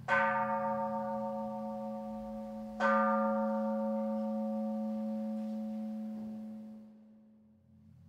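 Temple bell struck twice, about three seconds apart, each strike ringing on and slowly dying away.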